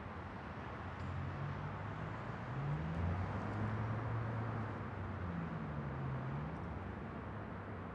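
Distant city traffic: a steady hum with the low drone of vehicle engines slowly rising and falling as they pass.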